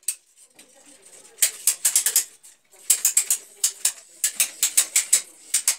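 Quick runs of sharp clicks and taps from hand work with a small tool, one short run about one and a half seconds in and a longer one from about three seconds in to near the end.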